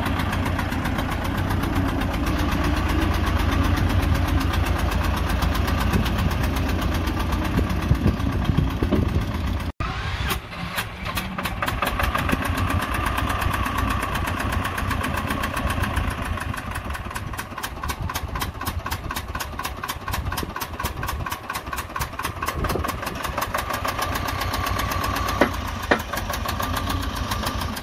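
Vladimir T-25 tractor's air-cooled two-cylinder diesel running, heavy and low while the tractor moves with its loaded carrier box. After a cut about ten seconds in, it idles with an even firing beat.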